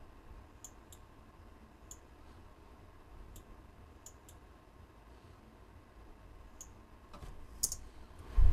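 Scattered clicks of a computer mouse and keyboard during text editing, about eight sharp clicks, some in quick pairs. A low thump comes near the end.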